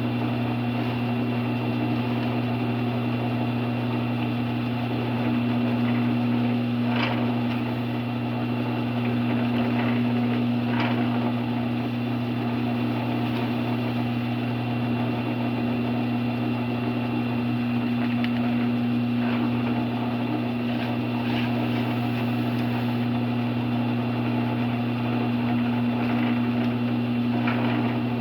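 Drill press motor running with a steady hum, while the bit bores a few holes through wood, heard as about five short, higher sounds over the hum.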